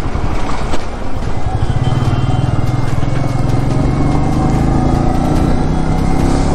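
Motorcycle engine running under way on the road, its note climbing slowly from about a second and a half in, over steady road noise.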